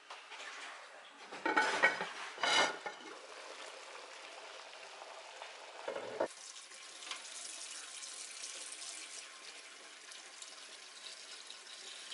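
A clay pot of azuki beans in water boiling on a gas burner: a steady bubbling hiss. Two loud, ringing clinks about a second apart sound near the start, and a short dull knock comes about halfway.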